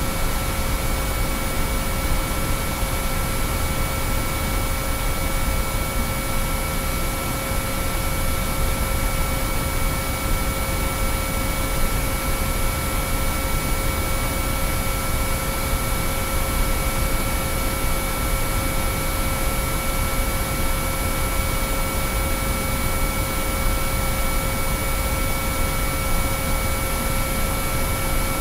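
Binaural-beat sine-wave tones, several pure pitches held perfectly steady, layered over a constant even hiss of noise.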